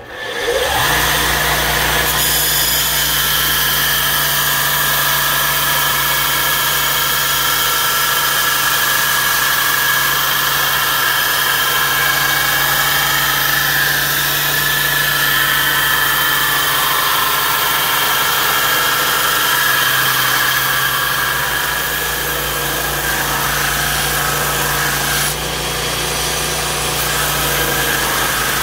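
Belt grinder switched on and spinning up within the first second, then running with a steady motor hum while its abrasive belt grinds a steel knife blade with a continuous hiss.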